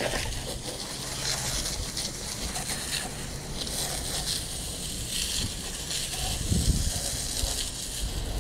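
Water spraying from a garden hose's pistol-grip nozzle onto an Exmark walk-behind mower's deck: a steady hiss of spray splashing on the metal and wet pavement. A dull bump comes about six and a half seconds in.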